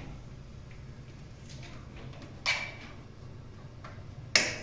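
Two brief clattering knocks, about two seconds apart, the second the louder, each with a short ringing tail, over a low steady hum.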